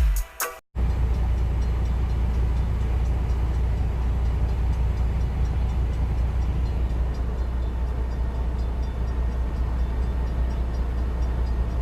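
Semi-truck engine running, heard from inside the cab as a steady low hum with road and cab noise.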